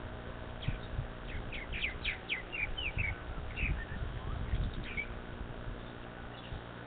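Purple martins chirping: a quick run of short, high, falling chirps that tails off about five seconds in. Low thumps and rumble sound underneath.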